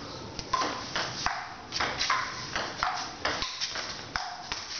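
Table tennis rally: the ping-pong ball clicks sharply off the paddles and bounces on the table, about two hits a second.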